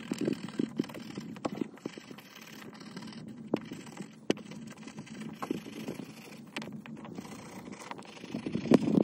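Small wire brush scrubbing rust off a corroded skeleton key: a run of quick scratchy strokes, with two sharp clicks about halfway through.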